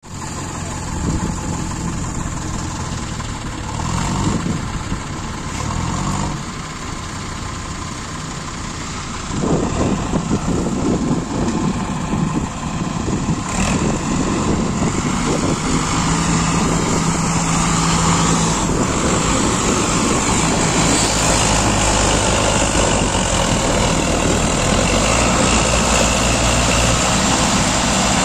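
Two diesel tractors, a Sonalika 750 Sikander and a Farmtrac, straining together on a tow chain to drag a fully loaded trolley out of mud. The engine note rises briefly a couple of times early on. About a third of the way in, both engines go to high revs under heavy load and stay there.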